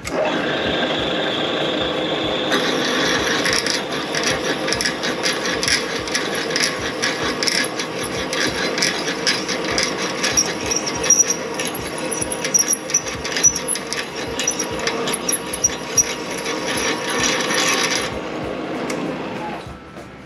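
Milling machine spindle running with a tap drill boring a shallow blind head-stud hole in an LS engine block, a steady machine whine with dense crackling ticks of the bit cutting. The spindle starts suddenly, the cutting sets in about two seconds later, and it eases off about a second or two before the end.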